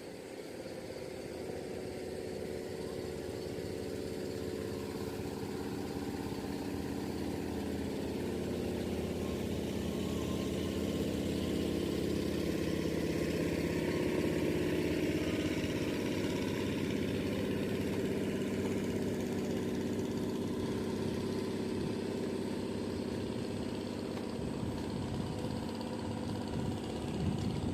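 A motor engine running steadily, growing louder over the first dozen seconds as it comes closer, then holding.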